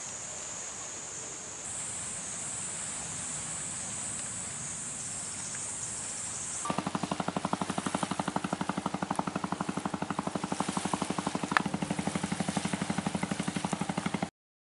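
A steady hiss, then, a little under halfway through, the rapid, even chugging of a small boat engine, with one sharp click near the end; the sound cuts off abruptly just before the end.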